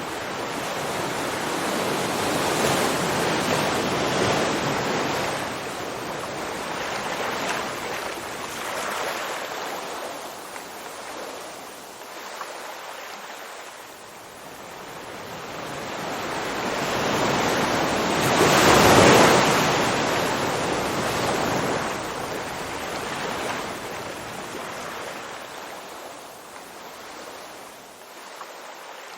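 Ocean waves breaking and washing ashore: a steady rushing hiss that swells and fades, with two big surges, the larger about two-thirds of the way through.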